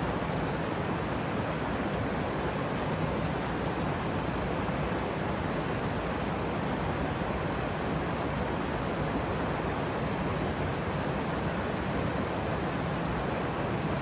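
Waterfall: falling water rushing in a steady, even hiss with no breaks or changes.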